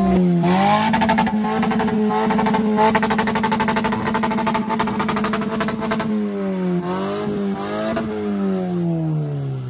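Car engine revving: the revs climb in the first second, are held high for about five seconds, then fall slowly away.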